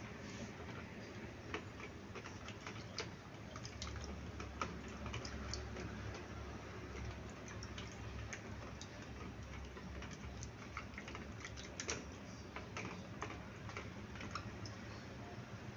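An apple being rubbed by hand in a plastic water scoop of water: faint, irregular small clicks and taps of the fruit and fingers against the plastic.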